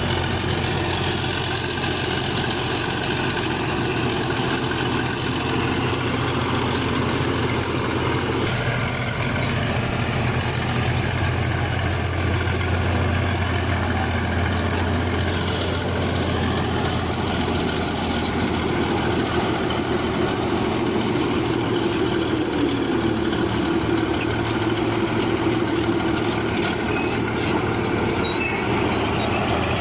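Bulldozer's diesel engine running steadily with a deep, even hum; its pitch shifts slightly about two-thirds of the way through.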